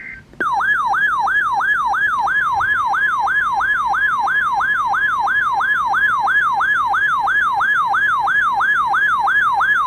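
Electronic emergency alert tone: a clean siren-like pitch sweep repeating about three times a second, starting about half a second in, with a steady higher tone joining about two seconds in. It is the alarm that introduces a broadcast severe thunderstorm warning.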